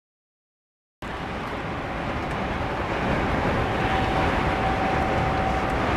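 Interior cab noise of a Scania R440 truck driving at highway speed: a steady mix of engine, tyre and wind noise that starts about a second in and slowly grows a little louder, with a faint steady tone joining in its middle part.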